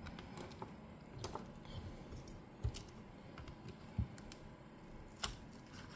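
Faint scattered clicks and light taps from a plastic opening pick and fingers working along a Samsung Galaxy A23's adhesive-held back cover. There are a few sharper clicks, about a second and a half apart, in the second half.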